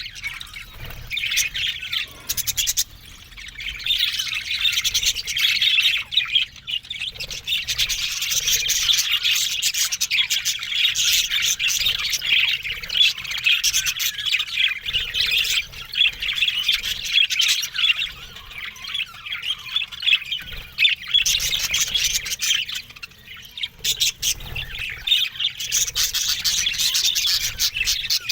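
Many budgerigars chattering together: a dense, continuous twittering of chirps and squawks that eases briefly twice.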